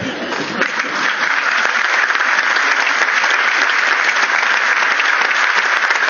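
Theatre audience applauding, the clapping swelling about a second in and then holding steady.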